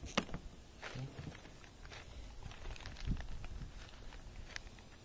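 Scattered clicks and rustles of nylon zip ties being handled and pulled from their plastic bag, with a sharp click just after the start.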